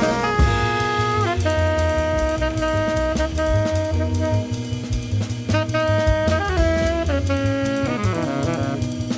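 Tenor saxophone playing a slow melody of long held notes over a jazz rhythm section of drum kit and upright bass, with a falling phrase near the end.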